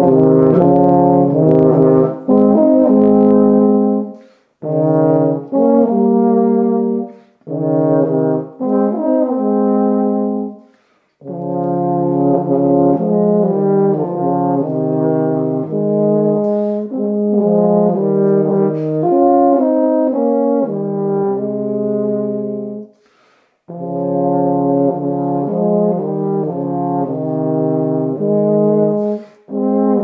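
Two tenor horns playing a duet in harmony, in phrases broken by short pauses for breath.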